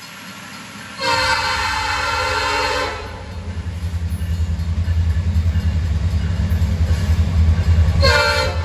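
A CN diesel freight locomotive's multi-tone air horn sounds a long blast about a second in, then the locomotives' low engine rumble grows louder as the train approaches, and the horn sounds again near the end.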